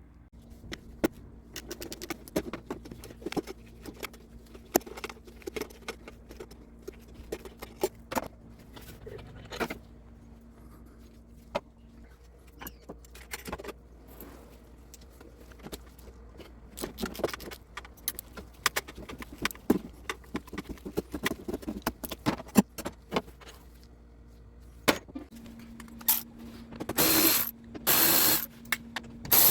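Metal socket and long extension clinking against each other and the engine as they are fitted onto the top engine mount bolt. Near the end a ratchet wrench clicks in quick runs, loosening the bolt.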